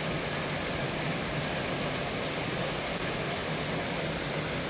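Heavy rain falling on tree leaves and paving, a steady, even hiss.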